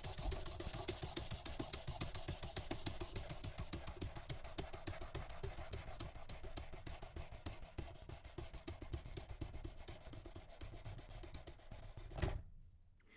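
Diamond sharpening stone on a guided sharpener scraping along a knife edge in quick, even strokes. The strokes grind a lot of metal off the soft blade steel, grow fainter, and stop near the end with a short knock.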